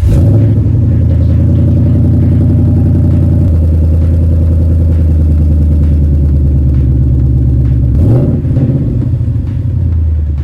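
Ford Mustang S197 engine on a cold start, catching suddenly and running loud and steady at a high idle. Its pitch rises and falls briefly about eight seconds in.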